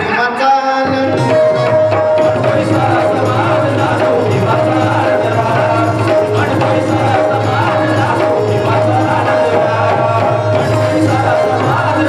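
Instrumental interlude of a live Marathi folk song: tabla playing a fast rhythm under a held melody line, with the full band coming in about a second in.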